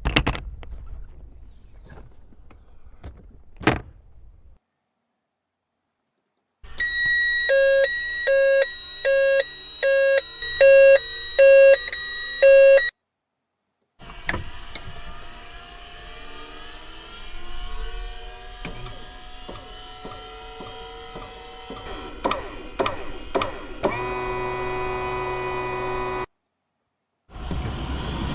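A string of separate Cessna 208 airplane effects with short silent gaps between them. First come clicks and knocks, then a loud electronic warning tone beeping in a steady on-off rhythm for about six seconds. After that a mechanical whine rises slowly in pitch, broken by sharp switch-like clicks.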